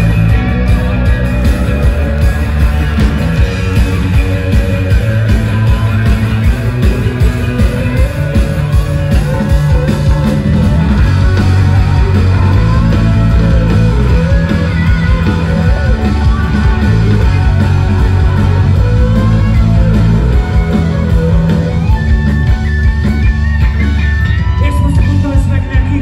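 Live rock band playing loudly, with guitars, heavy bass and drums and a singing voice, recorded from within the audience.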